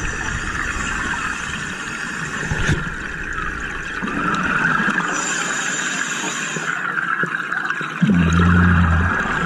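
Underwater sound of a compressor (hookah) diver's breathing gear: a steady hiss with bubbling from the regulator, and a low buzzing hum for about a second near the end.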